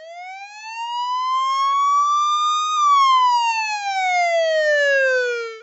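Police siren: one slow wail that rises in pitch for nearly three seconds, then falls for nearly three and cuts off.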